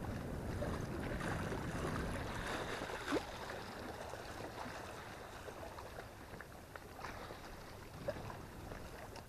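Outdoor rushing noise of wind on the microphone and lake water lapping, easing off gradually, with one short sharp rising squeak about three seconds in and a faint click about eight seconds in.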